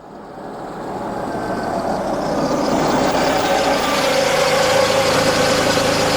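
Car engine running, growing louder over the first three seconds and then holding steady, as a car moves in to park.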